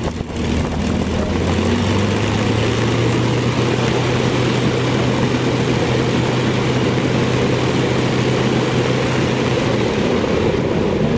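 CAC Mustang (P-51) V12 piston engine and four-bladed propeller running steadily on the ground. The engine note rises a little about two seconds in, holds, and shifts near the end.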